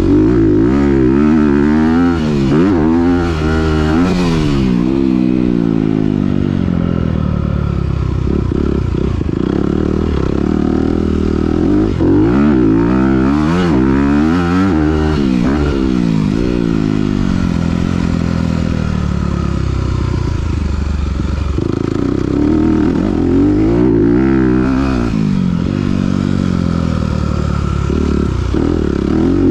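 2021 Honda CRF250R's single-cylinder four-stroke engine, through a Yoshimura RS-9T titanium exhaust, revved hard and shifted up through the gears, the pitch climbing in quick repeated sweeps. Between the bursts the throttle is held steadier as the bike runs through turns.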